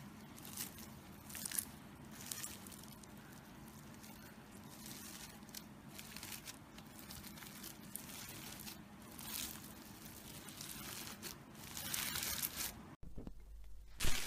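Bead-filled crunchy slime being squeezed and pressed by hand, giving irregular crackling and crunching as the beads pop and shift.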